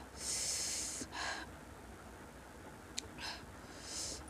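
A person breathing close to the microphone: a long hissing breath in the first second, a shorter one just after, a small click about three seconds in, then two more short breaths.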